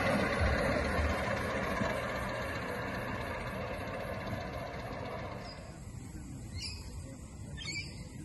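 A 5-inch gauge live steam model of an LNER B1 locomotive running along the track and moving away, its sound fading steadily. Two short, high chirps come near the end.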